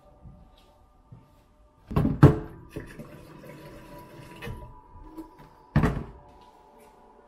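Water from a kitchen mixer tap running into an electric kettle, with two loud knocks as the kettle and tap are handled, one about two seconds in and one about six seconds in.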